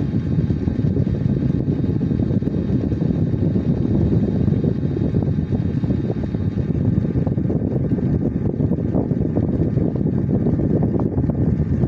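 Steady low-pitched rumbling noise with no distinct events.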